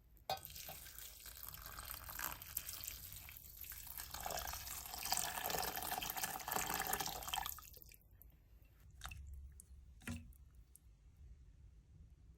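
Water running for about seven seconds, then stopping, followed by a couple of light knocks.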